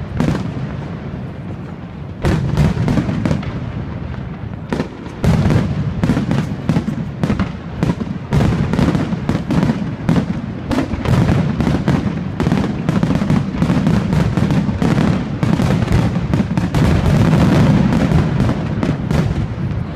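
Aerial firework shells bursting in a rapid, near-continuous barrage of bangs over a low rumble. The bangs come thicker and louder after about five seconds.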